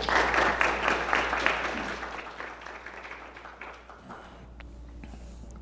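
Audience applause that dies away over about three seconds, leaving a quiet room with a couple of faint clicks.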